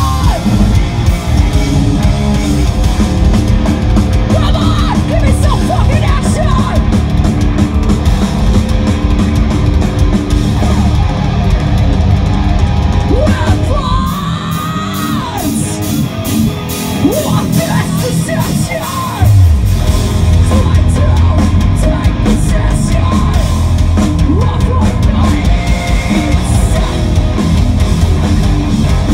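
A live hardcore band plays loud distorted guitars and drums while the vocalist yells. For several seconds just past the middle the bass and drums thin out, then the full band comes back in loudly.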